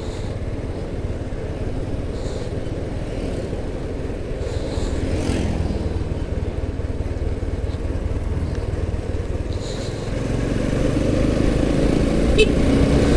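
Motorcycle engine running under way, mixed with wind and road noise, getting louder for the last few seconds as a steady engine note comes up.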